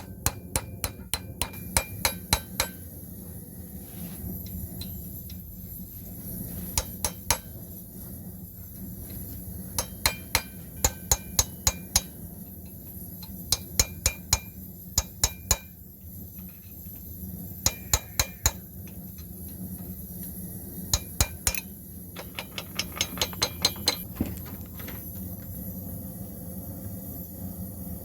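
Forging hammer striking metal on an anvil in quick runs of several ringing blows, with pauses between runs. The blows stop a few seconds before the end, and a steady low hum runs underneath.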